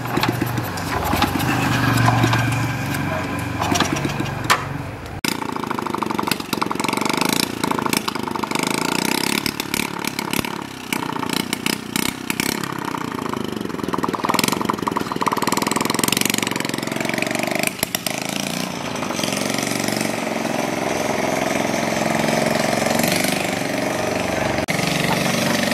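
Honda Chaly's small single-cylinder four-stroke engine starting and running, with many sharp ticks over it, its pitch slowly rising near the end as the bike is ridden.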